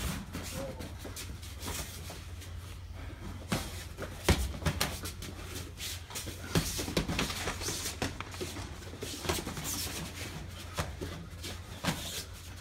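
Irregular smacks of boxing gloves landing punches during sparring, with feet shuffling on the ring canvas, over a steady low hum.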